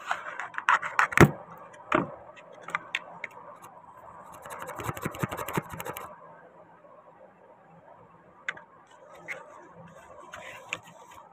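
Hard plastic clicks and knocks as small cast-resin air-gun magazine parts are handled and turned in the fingers, with a rough scraping stretch about four to six seconds in and a few faint ticks after.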